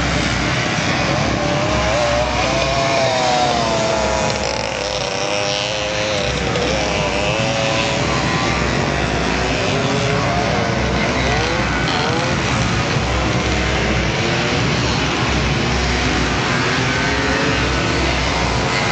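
Several pit bike engines revving on a dirt track, their pitch rising and falling as the riders work through the gears, overlapping one another.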